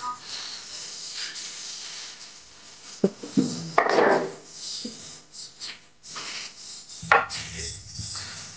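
Hands working with a floured round metal baking pan and a sheet of dough on a table: rubbing and shuffling, with sharp knocks of the pan about three seconds in, and a louder knock about seven seconds in as the pan is set down.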